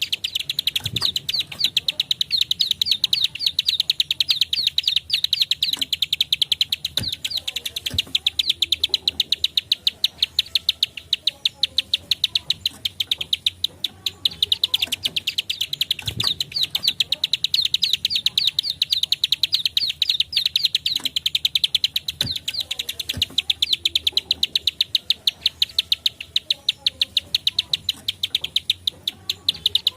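Plain prinia (prenjak klik, ciblek sawah) calling in a rapid, unbroken series of short, high, dry clicks, about ten a second.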